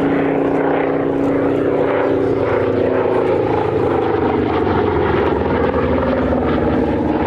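SAAB B17A dive bomber's radial engine and propeller droning steadily as it flies a display pass, the pitch sliding slowly lower in the first few seconds.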